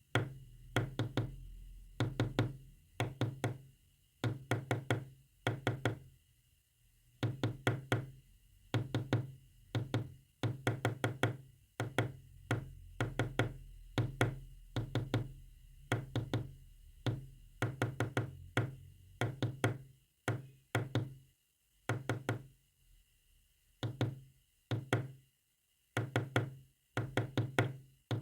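Sharp knocks in quick groups of about two to five, separated by short pauses, tapping out a Morse code message.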